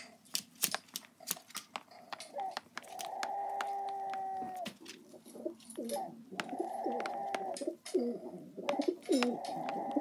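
A carrion crow's drawn-out, steady calls played through a tablet's speaker, several in a row with the longest about two seconds, mixed with many sharp taps of a jungle crow's beak pecking at the tablet screen.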